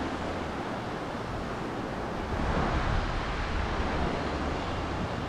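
Waves washing onto a sandy beach, heard as a steady rushing, with wind buffeting the microphone.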